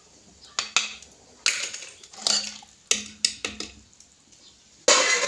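Metal ladle knocking and scraping against a steel cooking pot while sago in water is stirred: a string of short clinks and knocks, with a louder, longer clatter near the end.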